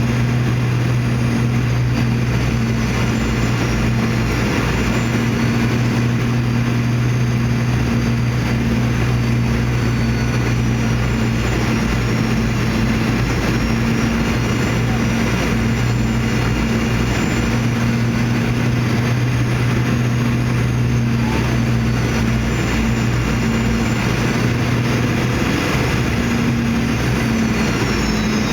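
Boeing 717-200 cabin noise: the rear-mounted Rolls-Royce BR715 turbofans and airflow make a steady, even drone with a constant low hum and faint high engine whines that waver slightly.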